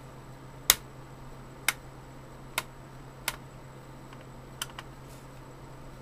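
Sharp plastic clicks and taps from a screwdriver working the captive screws of a Dell Inspiron 1525's bottom access door, six of them spread over about five seconds, the loudest about a second in. A low steady hum lies under them.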